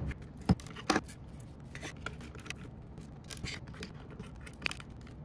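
Small screwdriver turning machine screws out of a 3D-printed PLA gearbox housing: light clicking and scraping, with two sharper clicks about half a second and a second in.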